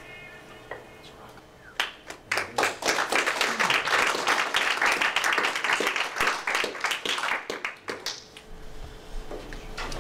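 Audience clapping. It starts about two seconds in, holds for about six seconds, and dies away near the end.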